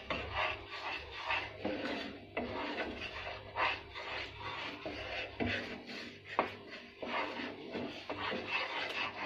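A cooking utensil scraping and stirring in a pan in short, irregular strokes with a few clicks against the metal, as gram flour is mixed into sugar syrup.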